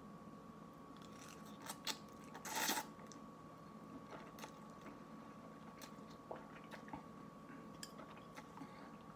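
A person eating instant cup noodles with chopsticks: slurping the noodles in and chewing, with small wet mouth clicks throughout and one louder slurp about two and a half seconds in.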